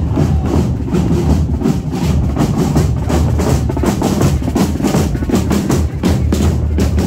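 Military marching snare drums, with a bass drum, played by a marching drum band, beating a steady march rhythm.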